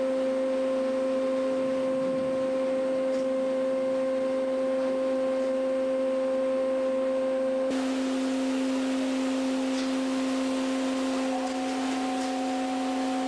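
Steady machinery hum aboard a fishing vessel, a constant low tone with a higher overtone. About eight seconds in, the tone shifts slightly and a hiss comes up.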